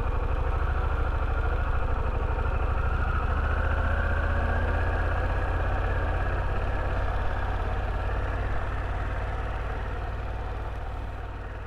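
Harley-Davidson Pan America's Revolution Max 1250 V-twin running steadily at low parking-lot speed, with a slight rise about three seconds in. It fades out near the end.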